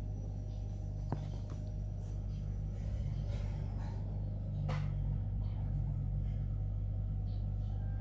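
A steady low hum, with a light click about a second in and another brief sharp sound about five seconds in.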